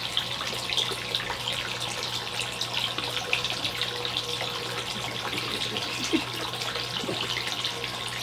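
Water pouring and splashing steadily into a shallow koi pond, over a low steady hum.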